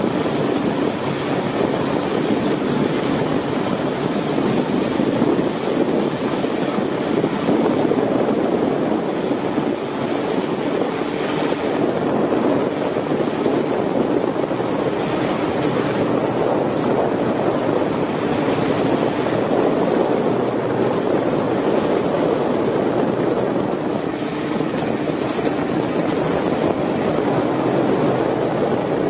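Steady rotor noise from the aircraft carrying the camera, heard from on board.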